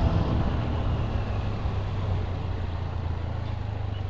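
Motorcycle engine running steadily on the move, a low hum under road and wind noise.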